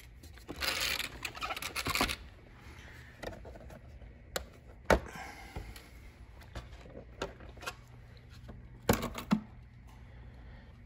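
Handling noise of an RC monster truck's plastic body being lifted off its chassis. A brushing scrape comes about a second in, followed by a few scattered clicks and taps.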